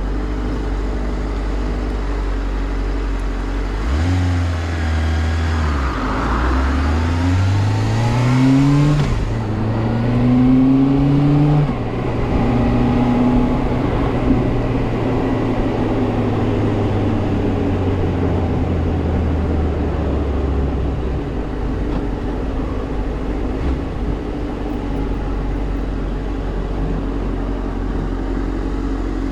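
Suzuki GSR400 inline-four engine through its stock exhaust, running steadily, then revving up twice with rising pitch and dropping back at each gear change, and settling into a steady cruise.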